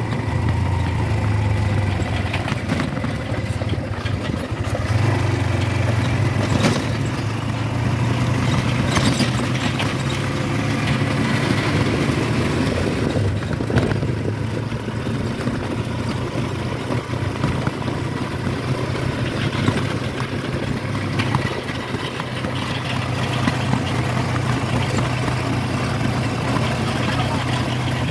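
Motorcycle engine of a tricycle running steadily, heard from inside its sidecar while riding, with a few sharp knocks and rattles from the cab along the way.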